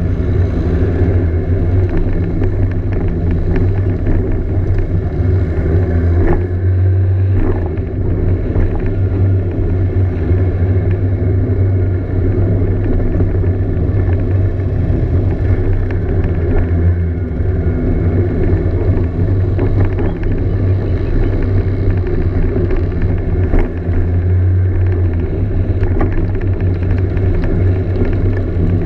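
Scooter engine running under way, heard from on board as a steady low drone with a stack of overtones. The drone eases briefly a few times as the throttle changes.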